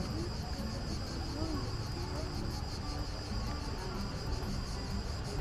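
Cicadas singing in the trees, a steady high-pitched rasping drone with an even fast pulse, over faint voices of people.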